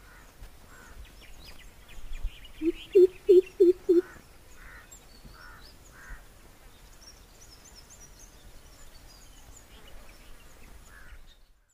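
Greater coucal (crow pheasant) calling a short series of about five deep, evenly spaced hoots, roughly three a second, a little under three seconds in. Faint high chirps of small birds are scattered through the rest.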